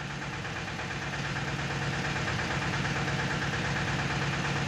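Tata Ace Zip XL mini-truck's diesel engine idling steadily, getting a little louder over the first couple of seconds.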